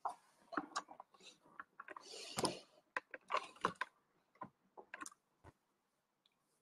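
Scattered light clicks, taps and knocks from handling close to the microphone, with a brief rustle about two seconds in.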